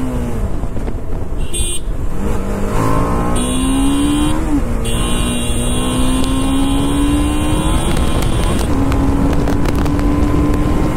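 TVS Apache RR 310's single-cylinder engine running under load while riding. Its pitch climbs, drops suddenly at a gear change about four and a half seconds in, climbs slowly again, and holds steady near the end.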